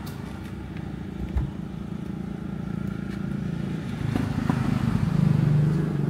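A motor vehicle engine running steadily, growing louder from about four seconds in, with one brief thump a little over a second in.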